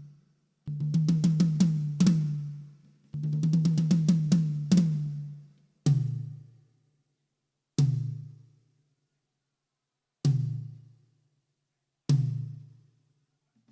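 Drum kit sound check through a PA system: a low, booming drum is played in two quick rolls, then struck singly about every two seconds, each hit ringing out for about a second.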